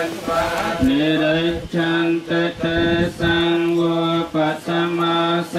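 Buddhist chanting in Pali, the voice held on one steady monotone pitch, with short breaks between phrases.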